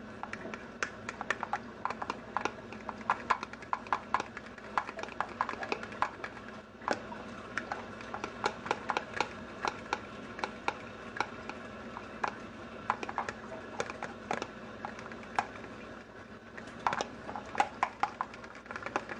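A utensil clicking and scraping against the sides of a small plastic container, several quick ticks a second in irregular runs with a couple of short pauses, as gelatin in hot water is hand-stirred to break up its clumps.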